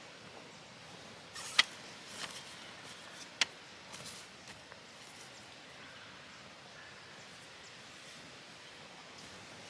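Faint outdoor background hiss with a few sharp, light clicks or taps in the first few seconds, the loudest about a second and a half in.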